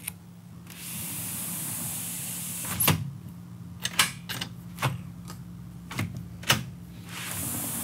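PGT aluminum sliding glass door panel rolling along its track on its rollers, a steady hiss of about two seconds, twice. In between come several sharp clicks and knocks from the latch and handle as the lock's function is checked.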